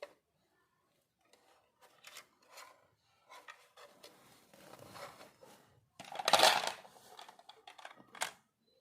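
Miniature toys and their packaging being handled: scattered small clicks and taps, a louder rustling scrape lasting under a second about six seconds in, and a sharp click near the end.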